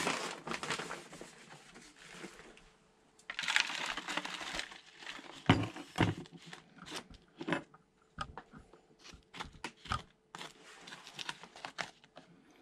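Potting soil being scooped and poured into a plastic seedling cell tray and worked in by hand and with a small trowel: two stretches of rustling pours, then a run of short taps and scrapes against the plastic.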